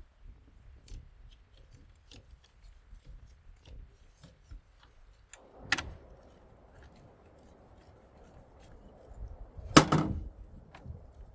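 Handling noises: faint scattered clicks and ticks, a sharp knock a little after halfway, and a louder clatter of hard parts about four-fifths in. The saw motor is not running.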